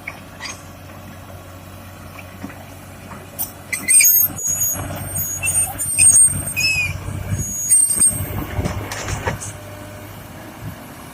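Heavy diesel machinery running with a steady low hum, with several loud high-pitched squeals and hisses between about four and eight seconds in.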